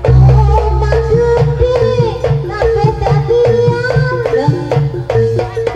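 Live Javanese dance music for a buto (giant) dance: drums beat a busy rhythm under a melody line that bends and wavers in pitch, with heavy low notes in the first second.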